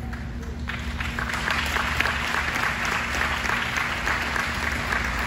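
Audience applauding in a large hall, the clapping starting about a second in and keeping up steadily.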